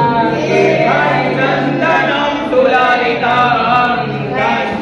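Several voices singing together, a chant-like devotional song with a steady low tone beneath the first half.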